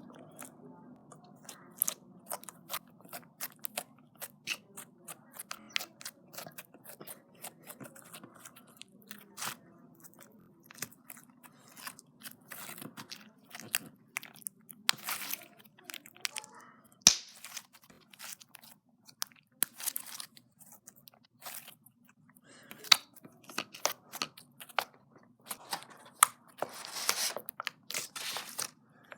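Slime being squished and worked by hand, giving irregular crunchy clicks and pops, with thicker clusters of crackling about fifteen seconds in and near the end.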